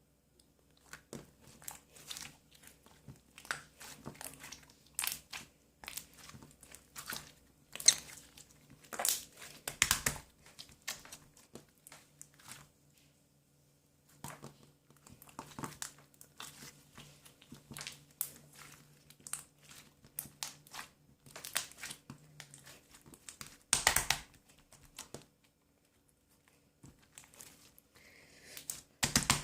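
Green slime being squeezed, stretched and pressed by hand, giving irregular sticky clicks, pops and crackles, with brief pauses.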